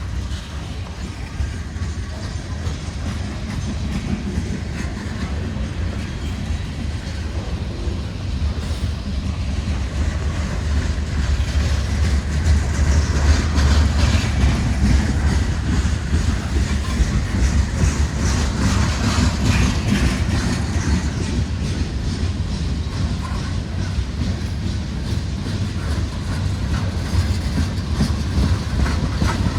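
Freight train cars rolling past: a steady rumble of steel wheels on rail with fine clicking from the wheels, louder about halfway through.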